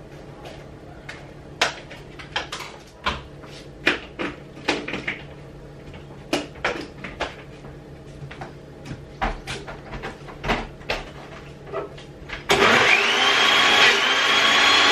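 Light clicks and knocks, then near the end a blender switches on suddenly and runs loud, its motor whine rising and levelling off as it blends frozen strawberries and banana for a smoothie.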